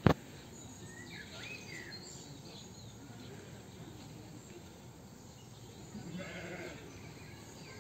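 Outdoor animal-park ambience with small birds chirping faintly now and then, and a faint distant animal call about six seconds in. A sharp click sounds at the very start.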